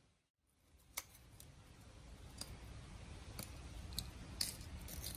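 A blade cuts into a shark's jaw cartilage, making a few faint, sharp clicks and snips at irregular intervals after a brief moment of silence.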